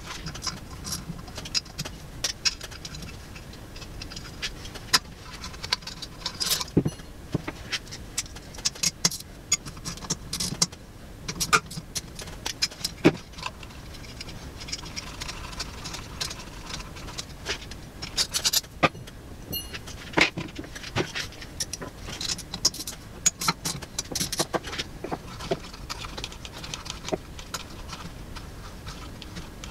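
Irregular clicks, taps and metallic rattles as an electric motor is dismantled by hand: long through-bolts and screws are worked out of the motor and dropped into a plastic parts tray.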